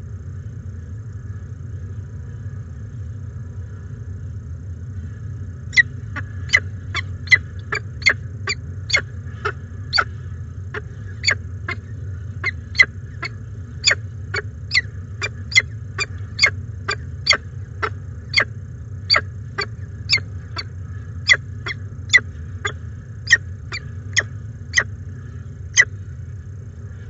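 Peregrine falcon calling at the nest while the adult feeds its chick: a long series of short, sharp, high chirps, about two a second, starting about six seconds in and stopping shortly before the end. A steady low hum lies underneath.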